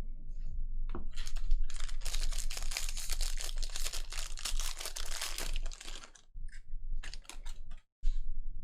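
A foil trading-card pack wrapper being torn open and crinkled, full of fine crackles. Near the end come sharper clicks of the cards being pulled out and handled.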